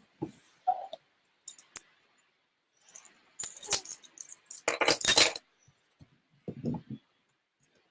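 A mailed package being opened by hand: scattered sharp clicks and crinkly rustles of packing material, with two louder rustling stretches about three and a half and five seconds in.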